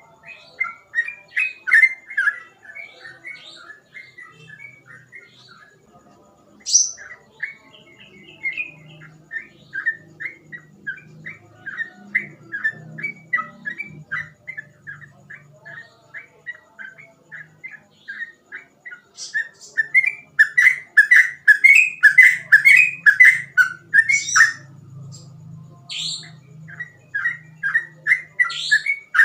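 Sooty-headed bulbul (trucukan) singing in fast, unbroken runs of short whistled notes, about three or four a second. The song grows loudest about two-thirds of the way through, breaks off briefly, then starts again.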